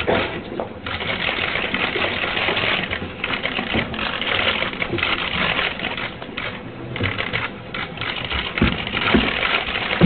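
Many press cameras' shutters clicking rapidly and continuously, overlapping into a steady clatter.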